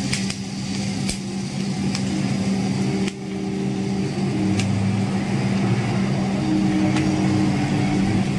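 Coffee roaster cooling tray running: the agitator arms stir freshly roasted beans, which rustle and rattle over the steady hum of the machine's motors, with a few scattered clicks.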